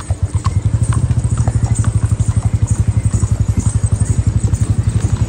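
Motorcycle engine running, a fast even low thumping, with a few faint sharp ticks scattered over it.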